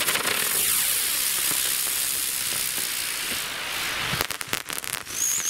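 Klasek Whistling Airplane spinning helicopter firework: a loud hissing rush as it spins and climbs, then a burst of crackling about four seconds in, followed by a short high-pitched whistle near the end.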